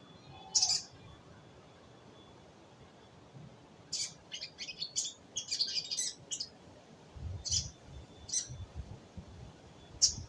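A bird chirping: short, high chirps, one near the start, a quick run of them about four seconds in, then single chirps spaced a second or so apart.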